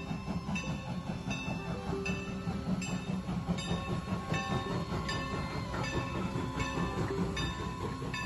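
Train running, a steady low rumble with a regular beat about twice a second.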